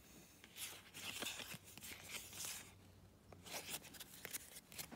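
Trading cards sliding against one another as they are flipped through by hand, in about four short, faint swishes.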